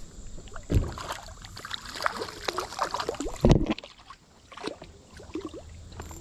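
Irregular splashing and sloshing of stream water, with two heavy thumps, one under a second in and a louder one about three and a half seconds in.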